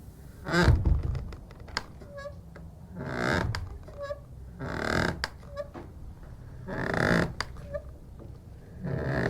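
Wooden church door creaking and squeaking on its hinges in a run of drawn-out creaks about two seconds apart, with short high squeaks in between. The first creak, about half a second in, is the loudest and heaviest, with a low thump.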